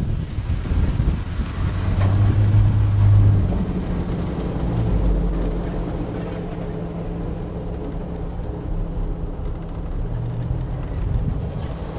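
Off-road 4x4's engine running at low speed while the vehicle drives along a sandy dirt trail. The engine hums steadily and swells briefly about two seconds in and again near the end.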